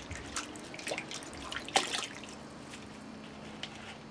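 Water splashing and dripping in a stainless steel bowl as hands swish fenugreek sprouts through it, rubbing off the last hulls. The splashes come irregularly, with one louder one a little under two seconds in, and quieten towards the end.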